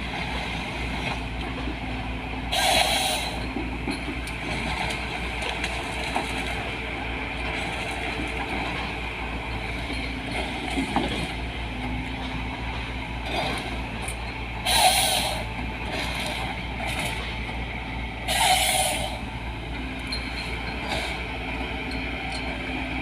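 LiuGong 915E excavator with a harvester head, its diesel engine running steadily, with three short louder bursts of noise from the machine's working.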